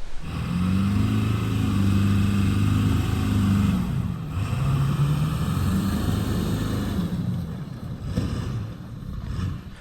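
A motor vehicle engine revving as it drives, its pitch rising and falling twice, then fading toward the end.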